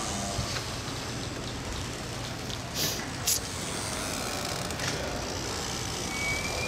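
Steady outdoor background of traffic noise, with two short hisses about three seconds in.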